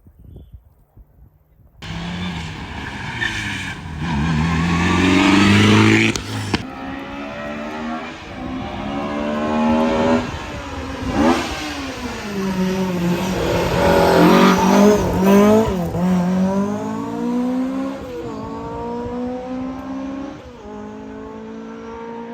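Hillclimb race car engine at full throttle, its pitch climbing and dropping back repeatedly as it revs hard and changes gear. It cuts in suddenly about two seconds in.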